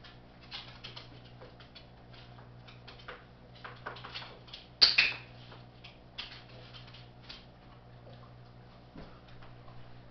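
A training clicker snaps once, sharp and loud, just under five seconds in, marking the dog's calm behaviour. Around it come light ticks and taps of a small dog's claws and movements on a wooden floor.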